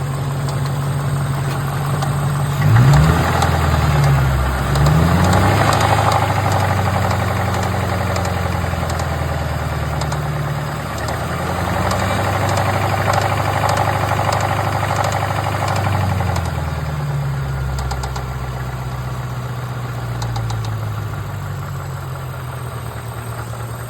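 Engine idling with a light ticking noise, its cause unknown. It is revved up about three seconds in, rises and falls a few times, then settles back to a steady idle.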